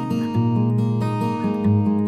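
Background music: strummed acoustic guitar playing chords.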